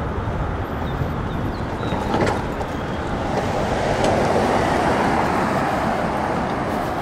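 Street traffic noise: a car driving by on the road, its tyre and engine noise swelling from about three seconds in and easing off near the end.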